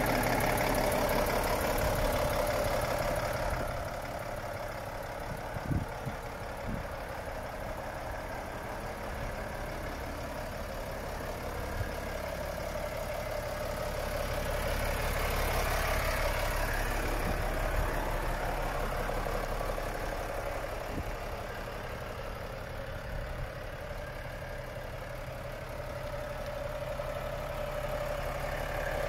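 Volvo FH 420 truck's 13-litre six-cylinder diesel idling steadily, its loudness rising and falling as the microphone moves around the truck, with a few faint clicks.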